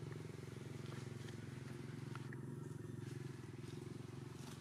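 A small engine running steadily, a low, even hum with a rapid pulse.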